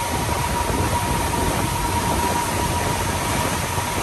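Tour boat under way: its engine drones steadily, with water rushing in the propeller wake and a thin, steady whine on top.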